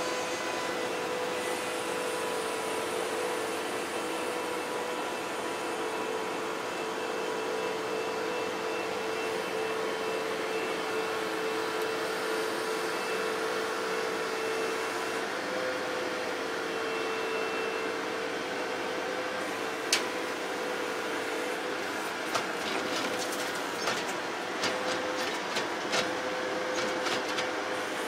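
Bobcat loader running steadily, heard from inside its cab: a constant engine and hydraulic drone with a steady whine over it. In the last third come sharp knocks, one alone and then several close together near the end.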